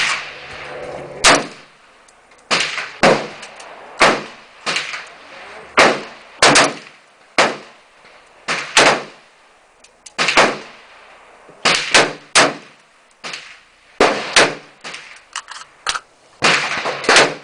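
Rifle shots from a 5.56 AR-15, a Sig Sauer M400, fired one at a time at an uneven pace, most about a second apart, each followed by a short echo. A few fainter shots fall in between, and a quick cluster comes near the end.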